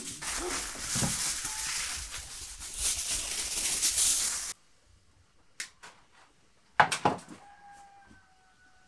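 Aluminium foil crinkling and rustling as it is wrapped around a large fish, cutting off suddenly about halfway. Then a few light clicks, one sharp knock, and a faint drawn-out tone that falls slightly near the end.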